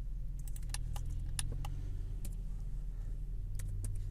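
Scattered sharp clicks of a computer keyboard and mouse, about a dozen irregularly spaced, over a steady low hum.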